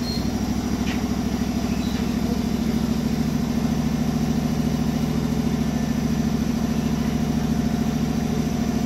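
Small engine of a ride-on miniature train's locomotive, idling steadily with an even, unchanging note.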